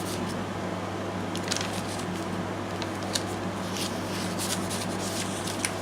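Several short paper rustles and crinkles as handmade junk-journal pages and tucked paper ephemera are handled and turned, over a steady low hum.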